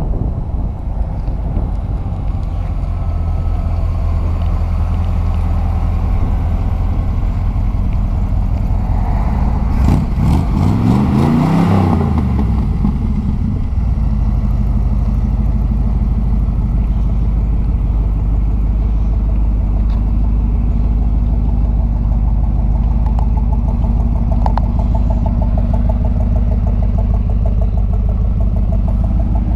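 Chevrolet 350 cubic-inch V8 in a 1947 Chevrolet 3100 pickup running with a low rumble. About ten seconds in the engine note rises and falls once, then it settles into a steady idle.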